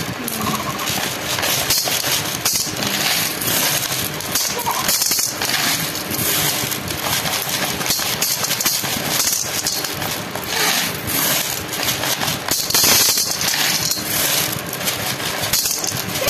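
Glass marbles clacking against each other and the metal basin as handfuls are scooped up and let fall back onto the pile: a dense, continuous rattle of clicks.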